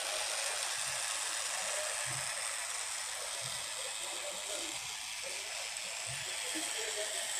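Steady background noise of a busy exhibition hall, an even hiss with faint, indistinct voices of people around.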